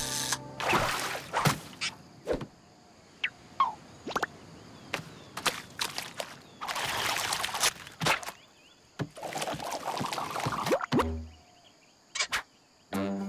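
A string of cartoon sound effects with no music: short clicks and swishes, and three longer rushing noises, one near the start and two in the second half.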